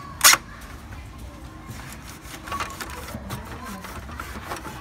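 Plastic parts inside the open front of an HP Color LaserJet Pro M177fw printer being handled, giving scattered clicks and rattles with one sharp snap just after the start.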